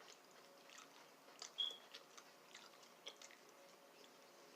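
Faint mouth sounds of someone chewing seasoned fish: scattered soft smacks and clicks, the loudest about a second and a half in.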